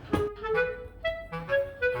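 Background music: a light, bouncy tune led by a clarinet-like woodwind playing short notes.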